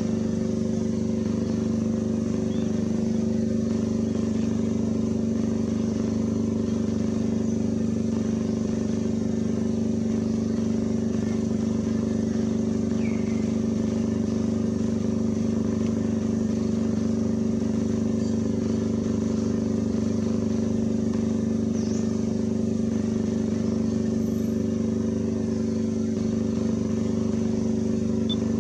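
A steady low mechanical hum of several held pitches, like a motor running without change. Two faint short chirps stand out briefly, one about halfway through and one later on.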